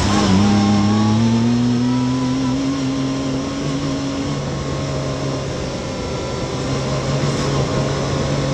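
Yamaha YXZ1000R side-by-side's three-cylinder engine under way. The revs dip at the start, then climb steadily for about four seconds as the machine accelerates, and then hold steady.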